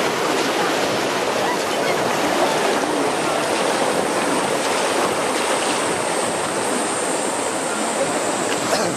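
Whitewater rapids rushing and churning close beside a river boat running through them: a steady, loud rush of water.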